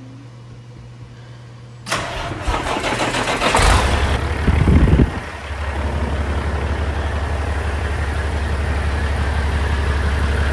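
Semi truck's diesel engine being started: the starter cranks about two seconds in, the engine catches within a second or two, and it gives a brief burst of revs. It then settles into a steady idle, fed through a freshly replaced fuel line and O-ring that were meant to stop it sucking air.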